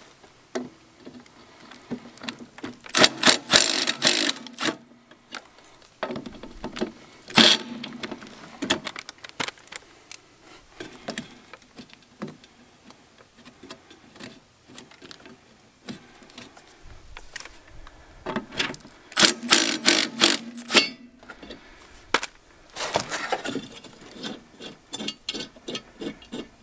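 Socket ratchet clicking in several bursts as the two blade bolts on the underside of a lawn mower deck are loosened and backed out, with metallic clinks and jangles of handling between.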